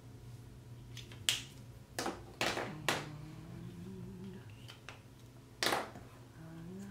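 About five sharp clicks, unevenly spaced, as brush markers are capped and handled. Between them a person hums a few low notes.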